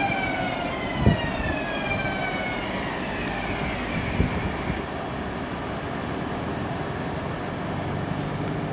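NS VIRM double-deck electric intercity train rolling in and braking, its traction motor whine falling in pitch and fading out about three seconds in, over a steady rolling rumble. Two sharp knocks from the wheels, about a second in and about four seconds in.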